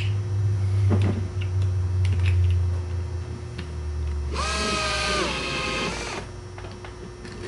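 Cordless drill spinning a nut down a bolt through a PVC end cap. About four seconds in, the motor whirs up, runs for about two seconds with its pitch sagging under load, and stops. A steady low hum runs underneath until the drill stops, with a light click about a second in.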